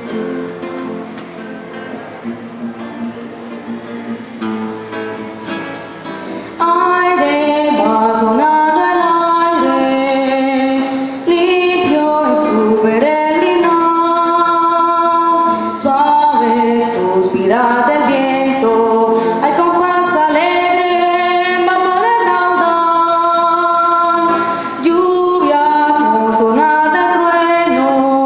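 A Colombian song in sanjuanero rhythm: guitar accompaniment alone at first, then a singer's voice comes in loudly about six and a half seconds in and carries the melody over the guitar.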